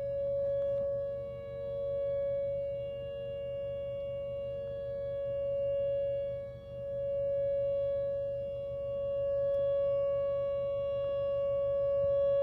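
Outdoor tornado warning siren sounding a steady tone, its loudness slowly swelling and fading. This is the steady alert signal of a statewide tornado drill test, run for three minutes straight.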